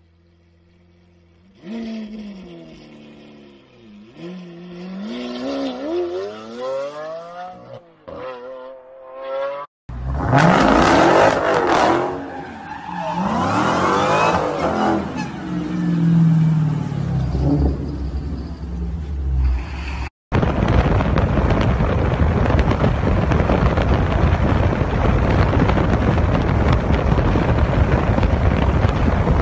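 A Lamborghini Aventador's V12 revs up and down several times. About ten seconds in, it cuts to a muscle car's engine at high revs with its tyres squealing as it spins them. From about twenty seconds in there is a steady loud rush of engine and wind noise.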